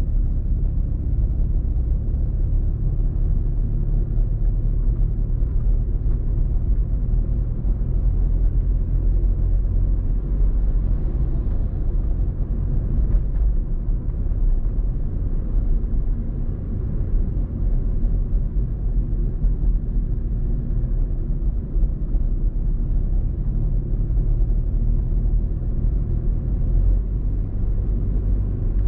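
Car driving along a city street: a steady low rumble of engine and road noise.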